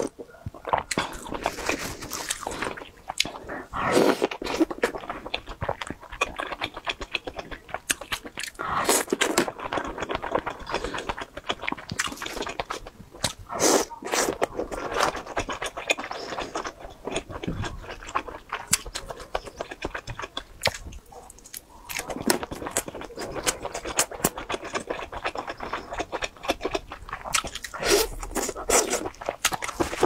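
Close-miked chewing of oden, soft fish cakes and kelp bitten off bamboo skewers, with many wet mouth clicks and smacks coming in louder spells.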